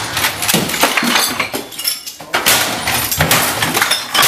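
Things being smashed on a desk: a rapid run of crashes, clatters and breaking glass with clinking debris.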